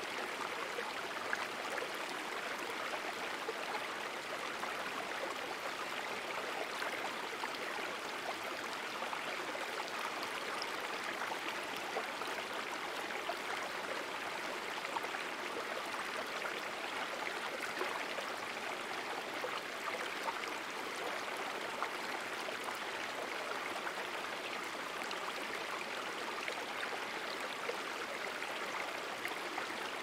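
Shallow stream running over rocks: a steady, even rush of flowing water.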